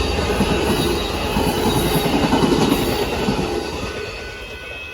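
Amtrak passenger train passing at speed: a loud rush of wheel and rail noise from the cars going by, which fades steadily over the last couple of seconds as the train moves off.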